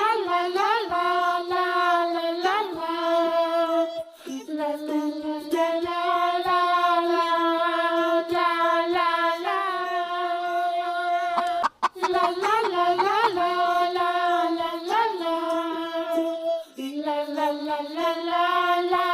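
A child-like voice singing a slow melody in long held notes, breaking off briefly about two-thirds of the way through.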